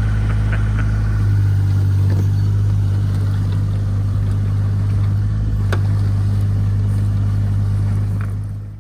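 Engine of a small bucket digger running steadily, a constant low hum that shifts slightly in pitch about a second in.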